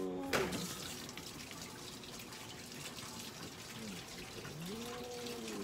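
Water running steadily from a tap, starting just after a sharp click. A cat meows at the start and again near the end.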